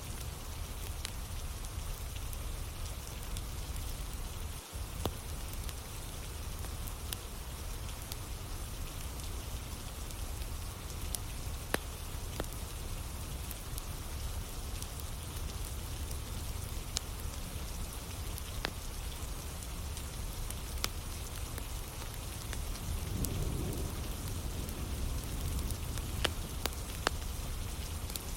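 Steady rainfall over a wood campfire: an even hiss of rain with a low rumble, and scattered sharp crackles and pops from the burning logs.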